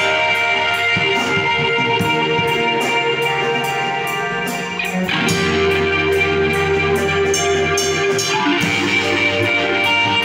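Live screamo band playing: electric guitars and bass guitar hold ringing chords over a drum kit with steady cymbal strokes. The chords change about five seconds in and again a little after eight seconds.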